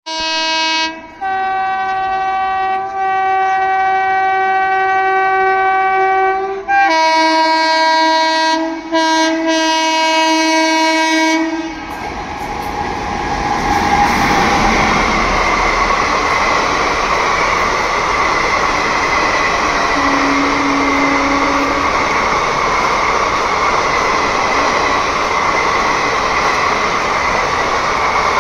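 Indian Railways locomotive horn sounding long, multi-toned blasts, changing pitch about a second in and pausing briefly near seven seconds, for roughly the first eleven seconds. It stops suddenly, and the train then runs past with a steady rush of wheels on the rails.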